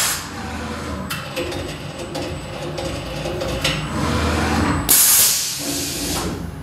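SkyfireCNC SVM1VMC mill's automatic tool changer swapping a BT30 tool: several short hisses of compressed air from the pneumatic tool release, one at the start and the loudest just before five seconds in. Between them the low hum of motors moves the umbrella carousel and spindle head.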